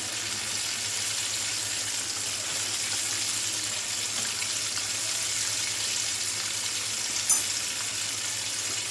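Flour-coated chicken pieces deep-frying in a pan of hot oil: a steady sizzle, with one sharp click about seven seconds in.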